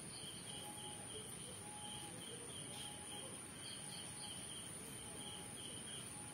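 Faint insect chirping: a steady high-pitched note with rhythmic trains of short chirps repeating less than a second apart, and a fainter short note about once a second.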